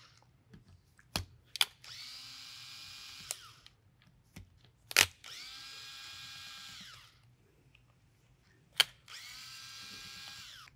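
Cordless electric screwdriver running in three short bursts of about one and a half to two seconds each, backing out the screws of an air rifle's top rail, its motor whine winding down in pitch at the end of each burst. Sharp clicks come between the runs, the loudest about five seconds in.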